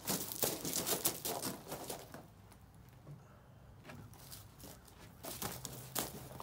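Wooden slabs and stickers knocking and clattering as they are stacked: a quick run of knocks, a lull about two seconds in, then more knocks near the end.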